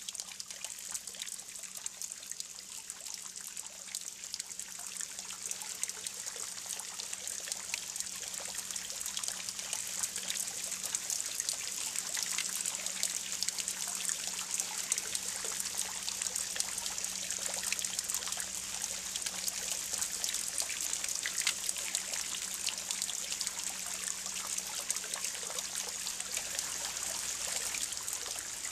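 Spring water trickling steadily from a copper standpipe, at first into a plastic jug, and splashing into a stone pool, with a thin jet spattering on the pond surface. It grows a little louder over the first ten seconds or so.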